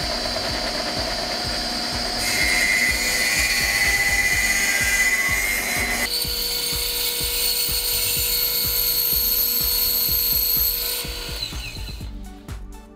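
A table saw running, then cutting into a jarrah-and-walnut plane blank from about two seconds in. About halfway through it gives way to a bandsaw running and cutting, which is switched off near the end, its whine falling as it winds down.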